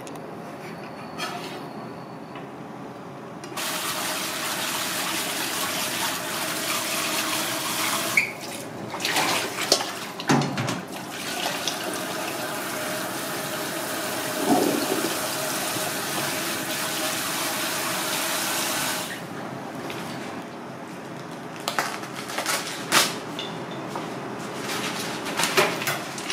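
Kitchen tap running onto finely shredded daikon radish in a plastic colander set in a steel bowl: the water comes on about three and a half seconds in and is shut off after about fifteen seconds. Scattered clicks and knocks of handling the colander and bowl follow.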